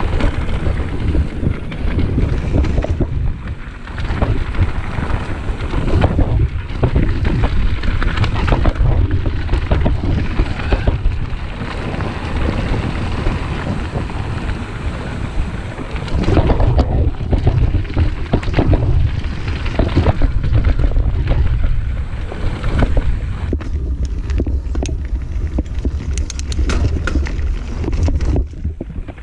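A mountain bike riding a dirt and gravel trail: wind buffeting the onboard camera's microphone as a heavy, uneven rumble, with tyres crunching over the ground and the bike rattling and knocking over bumps, the clatter thickest near the end.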